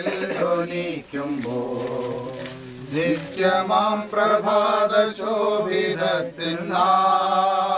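A group of voices singing a slow funeral hymn together, with a steady low note held underneath.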